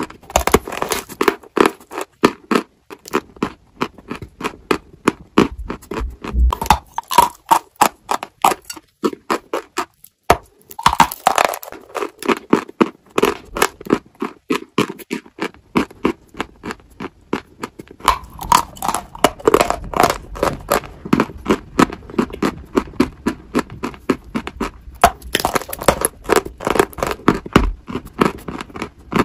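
Crunching and chewing of a dry white chalk lump: a dense run of crisp, crackling crunches several a second, with a short pause about ten seconds in.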